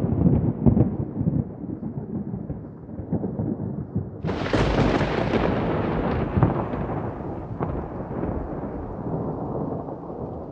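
Thunder: a low rolling rumble dies away, then about four seconds in a sharp, close crack breaks out and rolls off into a long rumble that slowly fades.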